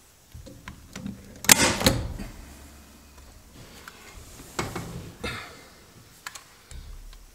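Staple gun firing staples into a car headliner: two sharp shots close together about a second and a half in, then a few more spaced out, with handling noise between them.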